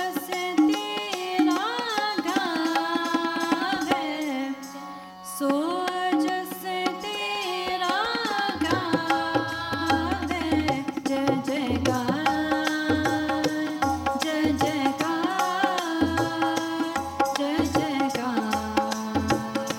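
Sikh kirtan: a woman's voice sings a shabad over a Yamuna harmonium's sustained reed chords, with tabla accompaniment. The tabla's deep bass strokes come in strongly about eight seconds in, after a brief lull in the singing.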